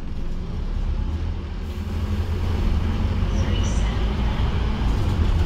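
Scania OmniCity bus's diesel engine and drivetrain running, heard from inside the passenger saloon as the bus moves along: a steady low rumble with road noise. A brief high squeak comes about three and a half seconds in.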